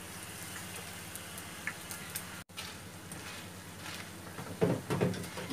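Goli baje batter balls deep-frying in oil in a wok: a steady sizzle over a low hum, cutting out for an instant about halfway. Near the end a wire skimmer knocks and scrapes against the wok several times as the balls are turned.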